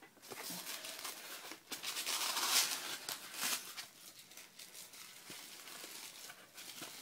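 Packaging crinkling and rustling as an item is unwrapped by hand, loudest for about a second and a half from around two seconds in, then softer.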